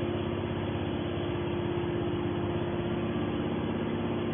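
Hydraulic scrap metal baler running with a steady, unchanging hum from its electric motor and hydraulic pump.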